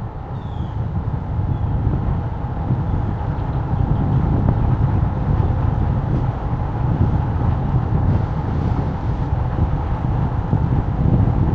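Steady low rumble of a vehicle in motion, with a faint steady hum over it.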